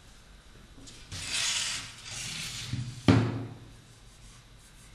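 Wooden chapel frame dragged across a tabletop in two scraping strokes, then set down with a sharp wooden knock about three seconds in.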